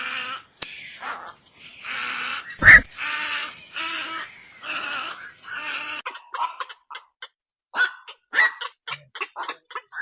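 Black-crowned night heron calls: harsh, croaking squawks in quick succession, with a sudden loud sharp sound about two and a half seconds in. About six seconds in the calls change to shorter, clipped notes with short gaps between them.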